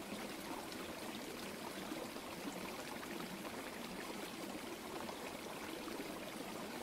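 Small forest brook flowing over stones: a steady, even wash of running water.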